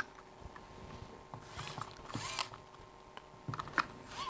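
Faint handling sounds of small parts on an RC car chassis: soft rubbing and scraping, with a few light clicks near the end.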